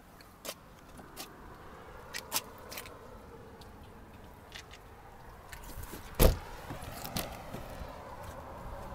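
Handling noises at an open car door: scattered light clicks and knocks, and one loud thump about six seconds in as a door is opened.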